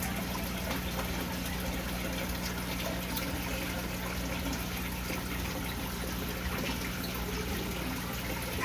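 Goldfish aquarium's filter and air stones running: steady bubbling and trickling water over a low, even pump hum.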